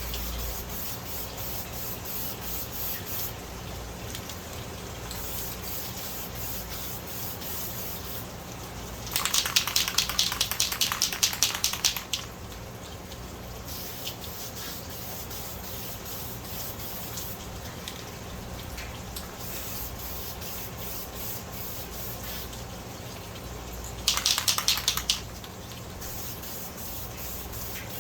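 Two bursts of spraying onto an air filter, the first about three seconds long and the second about a second, both coming as rapid pulses. A steady low hum runs underneath.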